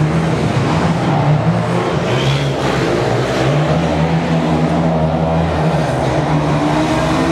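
Motorcycle engine running with revs rising and falling, heard down a long concrete corridor.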